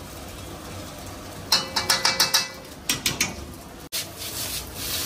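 A metal ladle clanks sharply against a steel pot and wok in two quick runs of strikes as chili sauce is scooped into a stir-fry. From about four seconds in, noodles sizzle in a wok tossed over a gas burner.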